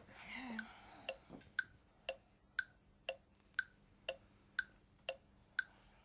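Ticking clock sound effect marking a decision countdown: an even tick-tock, two ticks a second, starting about a second in.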